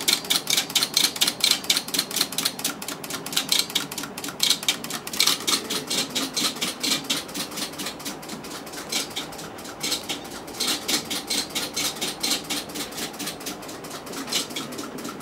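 Relays in a vacuum-tube Ward turret lathe control cabinet clicking rapidly, several clicks a second, in louder and softer spells, as the cabinet steps through its peg-pin program in auto mode.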